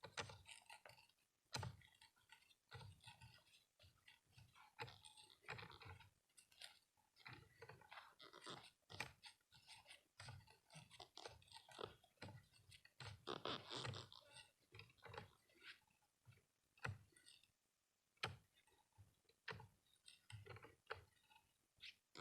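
Faint, irregular crunching and clicks of a hand-turned wood drill bit biting into wood, with a longer stretch of steady grinding about two-thirds of the way through.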